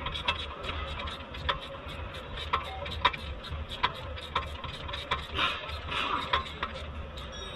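Irregular metallic clicks and taps of a hand wrench working a nut on a car's front control arm, a few a second, over a steady low hum.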